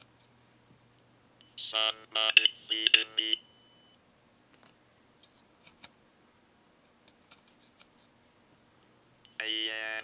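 A Parallax Propeller microcontroller's real-time text-to-speech synthesizer speaking a short phrase through a small speaker in a monotone robotic voice, in a few chopped syllables about one and a half seconds in, then starting another phrase near the end. The Plant Whisperer is reporting the soil's moisture status (too dry, just right or too wet); the speech code is still rough, so the words are hard to make out.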